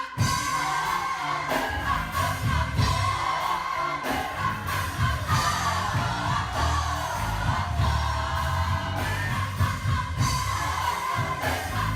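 Worship music with singing over a bass line.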